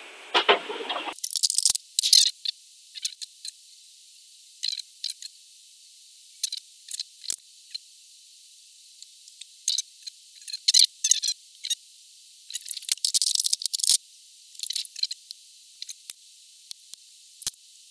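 Hand cutting tool clicking and scraping on a metal rivet in a circuit board as the rivet is cut and the part worked free: a run of short, irregular clicks and scrapes, thin and trebly.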